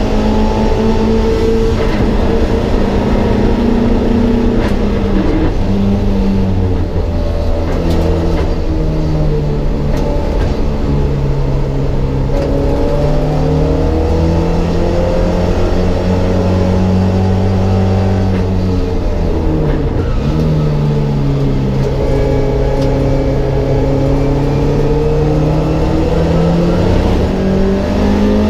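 Mk1 Ford Escort race car's engine heard from inside the stripped cabin, pulling hard with its pitch climbing steadily and then dropping back at each gear change or lift, about four times.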